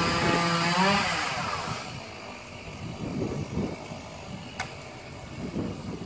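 Old Stihl two-stroke chainsaw running at high revs, then dropping in pitch and dying away about a second and a half in. After that, wind buffets the microphone, with one sharp click a little after the midpoint.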